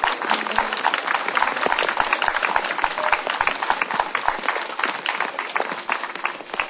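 Audience clapping, a dense, irregular patter that dies down near the end.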